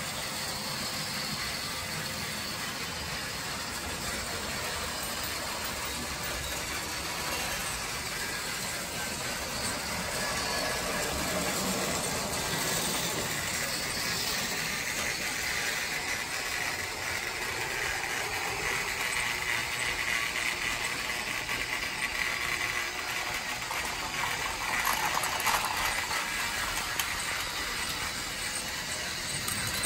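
Battery-powered TrackMaster toy engine's motor and gears running as it travels along plastic track, growing louder about a third of the way in.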